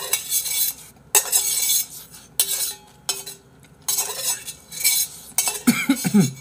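Metal spoon scraping and clinking against a stainless steel bowl as fried rice is scooped up, several strokes about a second apart, the bowl ringing briefly after some of them. Near the end a short vocal sound.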